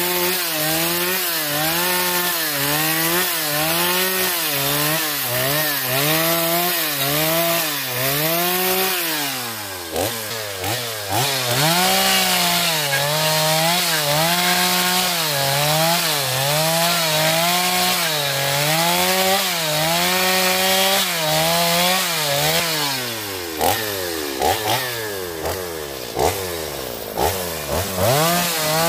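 Chainsaw running at high revs while cutting into a wooden log, its pitch dipping and rising about once a second as the cut loads and frees the chain. Near the end it eases off and a few sharp knocks sound.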